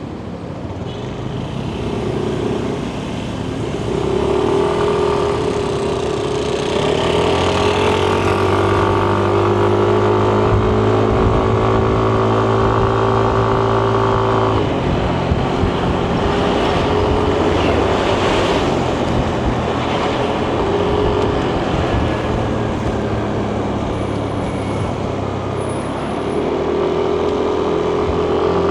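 Yamaha Nmax 155 scooter's single-cylinder engine and CVT while riding in traffic. The engine pulls up in pitch, holds steady, and drops abruptly about halfway as the throttle is eased, then pulls up again near the end, with road and wind noise underneath.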